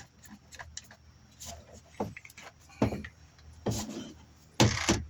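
Hard plastic clicks, knocks and rubbing from handling a pressure washer's spray wand and gun as they are twisted together and moved. There are a few sharp knocks in the second half, and the loudest comes near the end.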